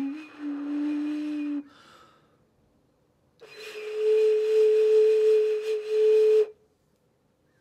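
Clay xun (Chinese vessel flute) being blown: a low held note ends about a second and a half in, then after a pause a higher, louder note is held for about three seconds, both breathy.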